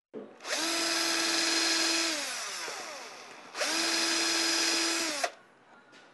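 Cordless drill drilling pilot holes through a template into the edge of a plywood panel, in two runs. The first run's motor whine slowly falls in pitch as it winds down. The second stops abruptly a little after five seconds in.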